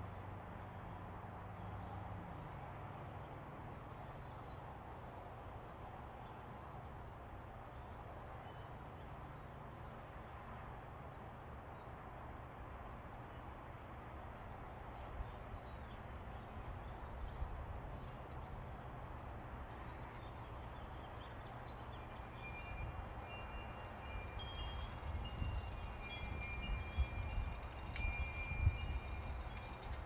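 Two metal-tube wind chimes ringing in the breeze over a low rumble. The ringing is sparse at first and picks up over the last third, with several overlapping tones.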